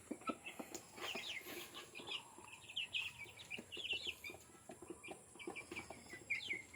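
Chickens calling faintly: a steady scatter of short, high chirps and soft clucks, with small clicks among them.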